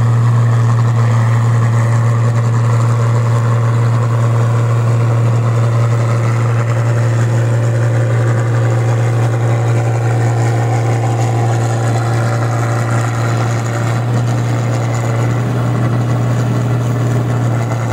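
New Holland 8060 combine harvester running steadily while cutting and threshing rice, giving a loud, even low engine hum with machinery noise over it.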